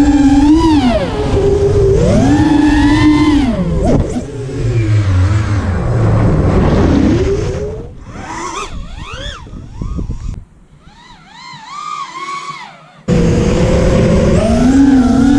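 Brushless motors and 5-inch propellers of a QAV210 FPV freestyle quadcopter whining, the pitch rising and falling with the throttle. The sound drops much quieter for a few seconds past the middle, then comes back loud suddenly near the end.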